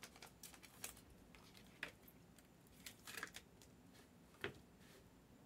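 Near silence: room tone with a few faint, scattered clicks and taps.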